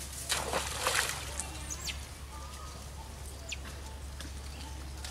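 Water splashing twice in quick succession from macaques swimming in a muddy pond, followed by a few thin, high, descending calls over a steady low hum.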